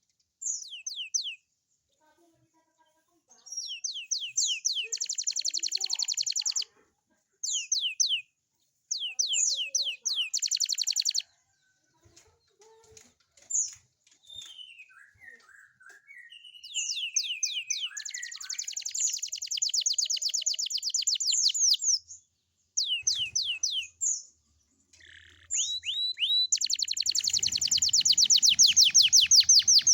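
Young domestic canary singing: phrases of quick downward-sweeping notes and fast rattling trills, broken by short pauses, with softer twittering in the middle. A long, loud trill starts near the end.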